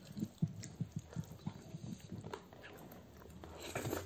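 Close-miked eating sounds: chewing, lip smacks and wet mouth clicks from people eating rice and chicken gravy by hand, with a louder noisy stretch near the end.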